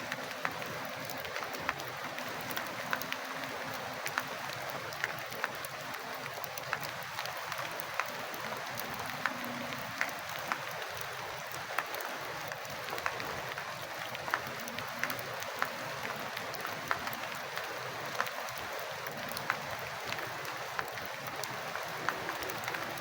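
Steady rain, an even hiss with many sharp drops tapping irregularly, several a second.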